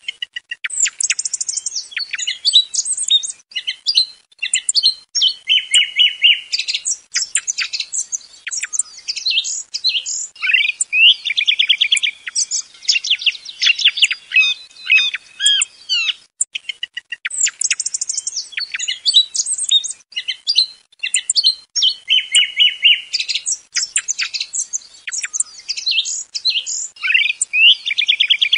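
Song thrush singing: varied, loud phrases of sharp notes and short trills, many repeated, with brief pauses between them. It is a lure recording for thrush hunting, and the same stretch of song comes round again about halfway through.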